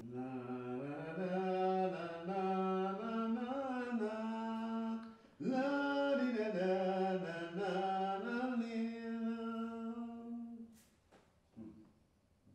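A solo voice singing unaccompanied, in two long phrases with held and gliding notes, breaking off about ten and a half seconds in; a faint click follows.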